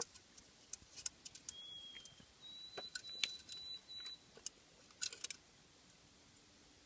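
Light metallic clicks and clinks of a stainless-steel Kelly kettle and its small pot being handled, with a quick cluster of clinks about five seconds in. In the middle two thin, high, steady whistles sound, the second lasting about two seconds.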